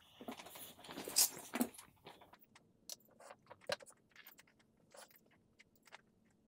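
Quiet metallic rattling of small lead shotgun pellets in a metal tin lid, then scattered light clicks as pellets are picked out with metal tweezers.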